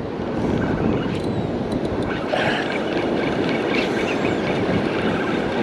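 Steady rush of ocean surf breaking on a beach.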